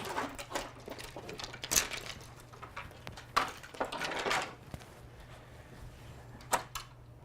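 Frame rods of a folding boat being popped off their rib fittings and handled: a few scattered sharp clicks and knocks, with a short rustling clatter about four seconds in.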